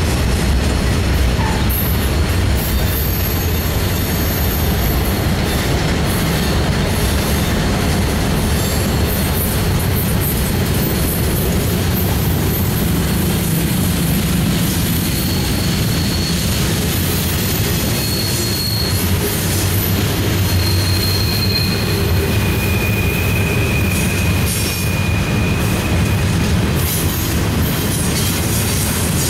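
Freight train cars rolling past with a steady rumble of wheels on rail. High-pitched wheel squeals come and go, most from the middle onward, from the wheel flanges grinding against the rail on the tight curve.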